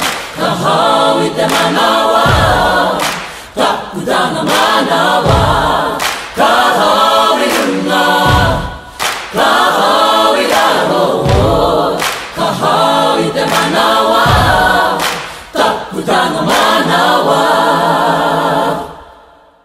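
Background music of a choir singing, with a deep beat about every three seconds; it fades out near the end.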